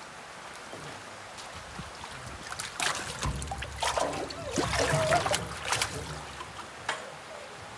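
Water splashing and sloshing in a transport tank as salmon trout are tipped in from a landing net and thrash in the water. The splashing starts about three seconds in and goes on in irregular bursts for about three seconds.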